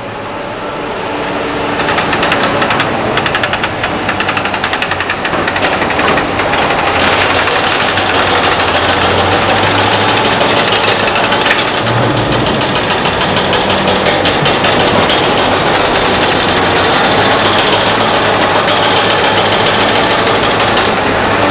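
Krupp hydraulic breaker on an excavator arm hammering rock and concrete rubble, a rapid steady pounding that comes in about two seconds in, over the running diesel engines of the excavators.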